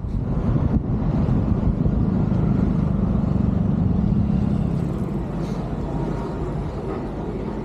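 A motor vehicle passing close by on the street: a low rumble that swells at once, holds for a few seconds and fades away after about five seconds.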